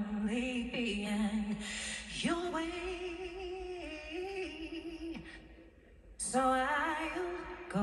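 A slow song, a solo singer holding long notes with vibrato. The singing breaks off for about a second near the end, then a new phrase begins.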